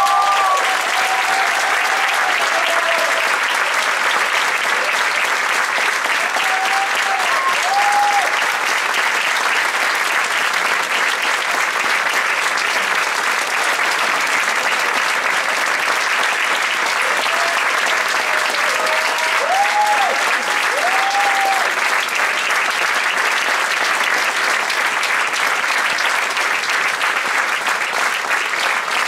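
Theatre audience applauding steadily and loudly, with a few brief voices calling out above the clapping near the start and twice more later on.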